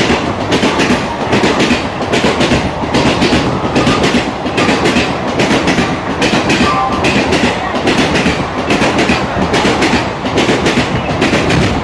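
Express train coaches passing at speed, their wheels hammering over rail joints in a rapid, continuous clatter that sounds like machine-gun fire.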